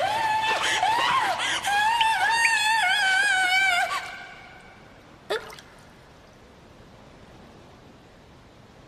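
A high, wavering melody fades out about four seconds in. About a second later a single water drip plinks into the bathwater, and a faint hush of bathroom room tone follows.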